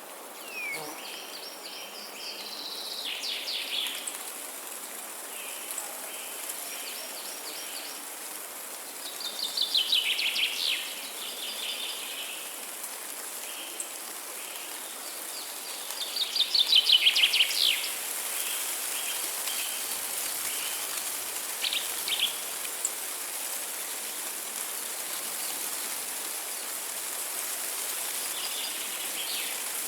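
Forest songbirds singing, repeating phrases of quick notes, with two louder rapid trills about ten and seventeen seconds in, over a steady high hiss.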